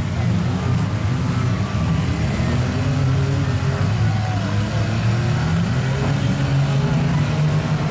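Several derby car engines running loudly, revving up and down.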